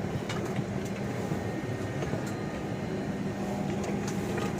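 Steady rushing noise inside an airliner cabin, its air conditioning running with a low hum, and a few faint clicks.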